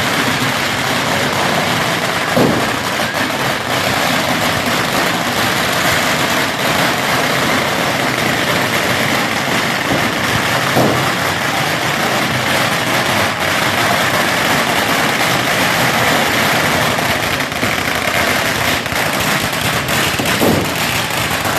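Fireworks hissing and crackling in a continuous dense shower of small pops, with three brief falling whistles spread through it.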